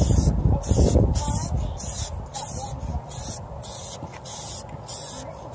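Aerosol can of UV-curing clear coat spraying onto a headlight lens: a high hiss broken into short bursts, roughly two a second, as the nozzle is pressed and released. A low rumble sounds in the first second.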